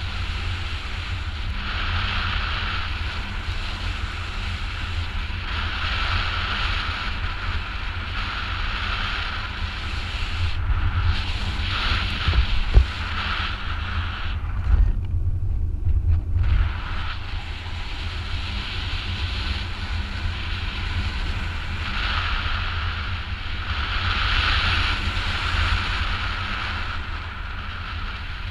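Wind rushing over a GoPro HERO4's microphone in paragliding flight: a constant low buffeting rumble, with a hissing rush of airflow that swells and fades every couple of seconds. A few stronger gusts come about halfway through.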